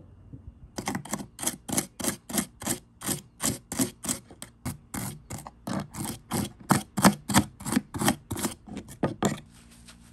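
Rapid scraping strokes, about three a second, of a wooden stick rubbing softened old finish off small brass hinges held with pliers in a plastic tub of chemical stripper. The strokes stop suddenly near the end.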